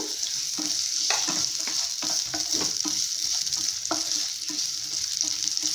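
Sliced onions sizzling in hot oil in a non-stick frying pan, with a steady hiss, while a spatula stirs them, scraping and tapping against the pan at irregular intervals.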